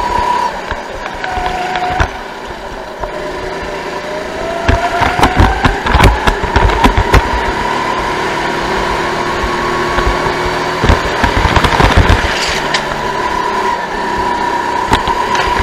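Sodi go-kart engine heard on board at racing speed: its note drops briefly about a second in, then climbs steadily over several seconds as the kart accelerates out of a corner and holds high. Bursts of sharp rattling knocks come in the middle and again near the end.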